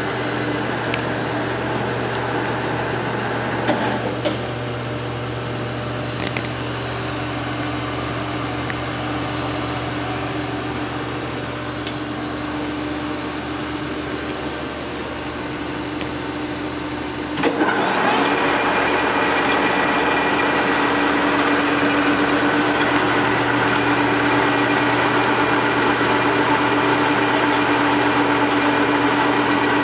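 Nardini engine lathe running, its geared headstock giving a steady mechanical hum with a constant tone. A bit over halfway through there is a clunk, and the machine then runs noticeably louder at much the same pitch.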